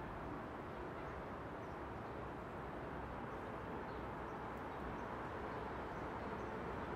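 Steady railway-station ambience: an even low rumble and hiss, with faint high bird chirps now and then.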